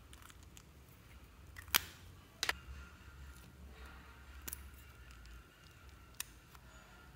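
Four sharp plastic clicks from lipstick tubes being handled and uncapped. The two clicks about two seconds in are the loudest, over a faint low hum.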